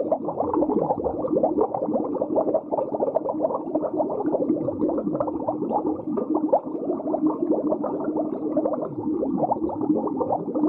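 Muffled underwater ambience sound effect: dense bubbling and gurgling over a low steady hum, with a few slow downward swoops.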